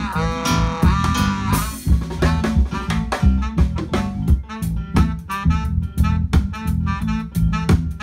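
Live band playing: saxophone melody over a drum kit and guitar, with a steady bass underneath. A cymbal crash comes about a second and a half in, and the drums keep an even beat.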